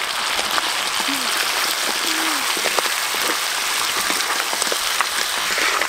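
Crab pieces sizzling in hot oil as they stir-fry with shallots, garlic and chili: a steady hiss with frequent small crackles and pops.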